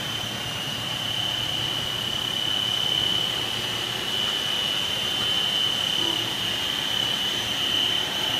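PVC/WPC door-board extrusion production line running: a steady mechanical drone from its motors and drives, with a constant high-pitched whine over it.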